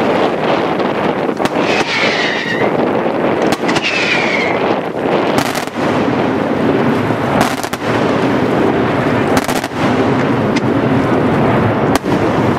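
Daytime fireworks display: a rapid, dense barrage of aerial shell bursts that blends into a continuous rumble, with several sharper bangs standing out every couple of seconds.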